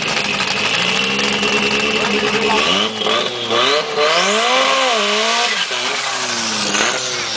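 Second-generation Toyota MR2's engine revved hard during a burnout, its pitch swinging up and down several times, most strongly from about three to six seconds in.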